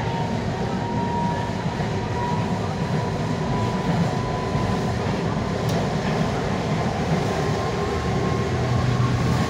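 Naples Metro Line 1 train running between stations, heard from inside the train: a steady rumble of wheels on rail, with a thin high whine that creeps slightly up in pitch.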